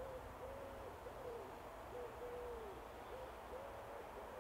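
A bird calling with a run of low hoots, several short notes that rise, hold and fall away, over faint background noise.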